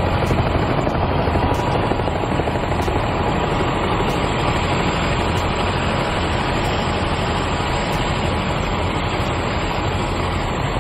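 Strong wind blasting the phone's microphone, a loud steady roar with no let-up.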